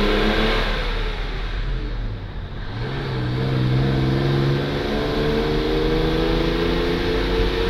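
Austral Tourmaster double-deck coach's diesel engine under hard load, heard from a car close behind. Its pitch sags in the first second or so, is lowest about two seconds in, then climbs steadily as the coach accelerates.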